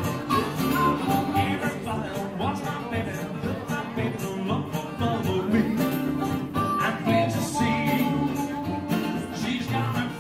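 Small acoustic early-jazz band playing: strummed guitars and banjo keep a steady beat under a harmonica and clarinet melody.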